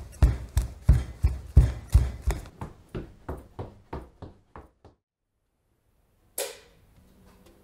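Footsteps walking away, about three steps a second, fading out over some five seconds. After a short silence comes one sharp fizzing hiss, a beer can being cracked open.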